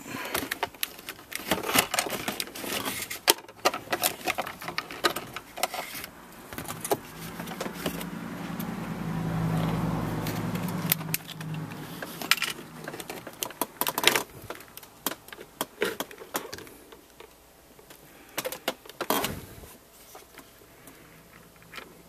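Clicking and rattling of hard plastic trim and the shifter boot being handled and pried loose around a car's gear shifter console, with a low steady hum for a few seconds in the middle.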